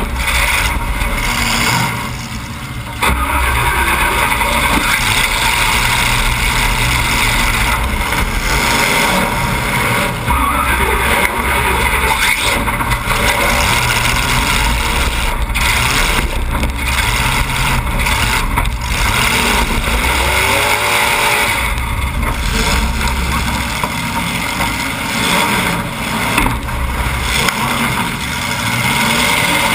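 Demolition derby car's engine running hard through open exhaust pipes that stick straight up through the hood. The engine eases off briefly about two seconds in, then comes back up, with a few sharp knocks along the way.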